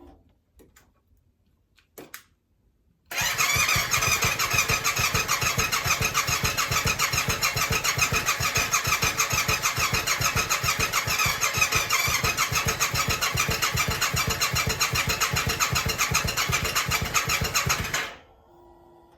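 A couple of faint clicks, then the 2021 Yamaha YZF-R7's electric starter cranks its 689 cc parallel-twin engine for about fifteen seconds, with a fast, even churning pulse, before stopping suddenly. The engine turns over but does not catch on this first start attempt after the rebuild.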